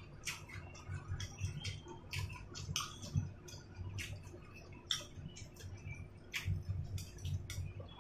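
Close-up chewing of soft boiled dumplings: wet mouth smacks and clicks at irregular intervals over soft jaw thuds.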